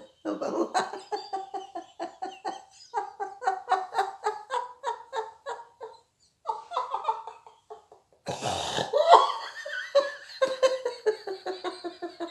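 A woman laughing hard in long runs of quick, pulsing belly laughs. She breaks off briefly twice, and about eight seconds in there is a loud breathy outburst before the laughter runs on.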